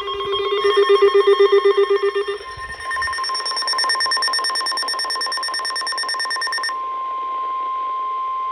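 A sequence of loud electronic emergency-alert tones on a weather radio broadcast. First a low buzzing tone pulses about eight times a second for some two seconds, then a cluster of higher tones pulses rapidly for about four seconds. It ends in a steady single-pitch tone, the weather radio alert tone.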